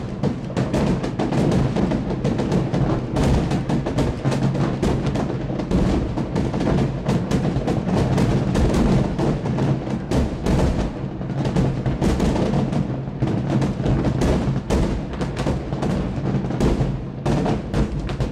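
Fireworks display: a dense, continuous barrage of aerial shells bursting, many sharp cracks and booms overlapping with no let-up.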